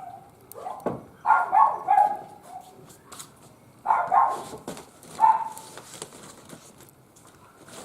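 An animal calling in short, sharp calls: three close together a second or so in, two about four seconds in, and one more a second later.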